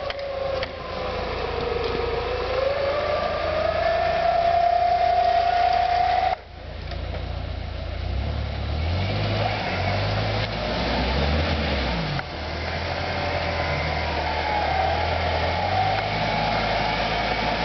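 Jeep Wrangler YJ engine running hard in a flooded mud pit: the revs climb and hold, then drop off suddenly about six seconds in, and the engine keeps running unevenly after that.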